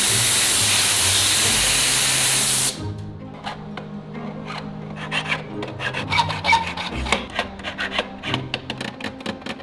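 A jewelry steam cleaner blasting a gold piece: a loud, steady jet of hiss that cuts off after nearly three seconds. Then a needle file rasps in short, quick strokes across a small gold piece against a wooden bench pin, with background music underneath.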